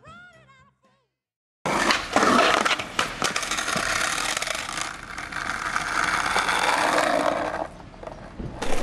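Skateboard on concrete: about two seconds in it starts loudly with wheels rolling and the board grinding and knocking against a concrete ledge and the paving, ending in a slam as the skater falls.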